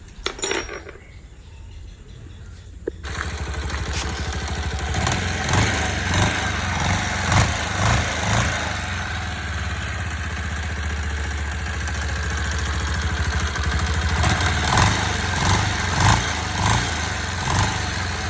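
Bajaj Pulsar single-cylinder motorcycle engine starting about three seconds in and then running, with repeated short surges in sound. It has just been fitted with new rocker arms in place of badly worn ones that made a knock like a failed connecting rod, and it is being run to check the noise.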